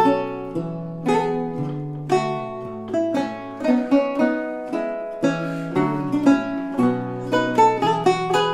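Solo lute playing: a run of plucked notes, with a melody moving over a lower bass line.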